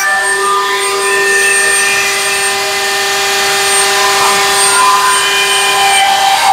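SKIL fixed-base router in a benchtop router table running at speed with a steady high whine, as pine pieces are pushed along the bit to shape their edges.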